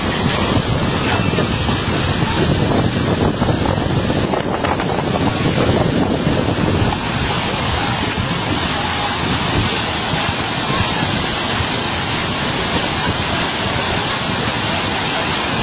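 Huaico mudflow of muddy water and debris rushing down a river channel, a steady rushing noise that eases a little after about seven seconds, with wind buffeting the microphone.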